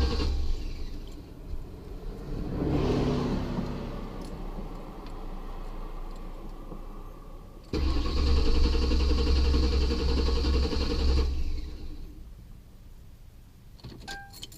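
Ford Crown Victoria 4.6-litre V8 cranking on the starter: it catches briefly about three seconds in and dies, then cranks again for about three and a half seconds and fades out without running. This is a hard-start/stall condition that the owner suspects is the fuel pump. Short electronic dash chimes sound near the end.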